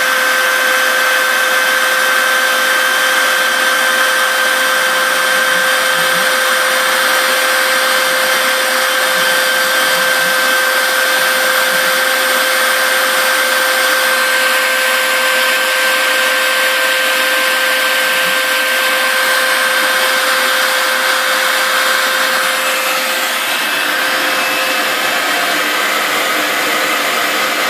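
Router spindle of a home-built CNC machine running steadily as it cuts inch-thick pink foam, with a shop vac drawing off the dust through a hose beside the bit: a steady high whine over a rush of air. The whine shifts slightly near the end.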